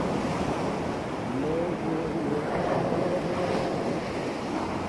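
Ocean surf: a steady rushing wash of waves, with a few faint wavering tones over it in the middle.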